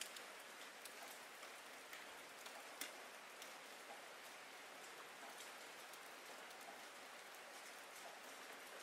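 Faint, steady rain hiss with scattered sharper drop ticks; one tick stands out about three seconds in.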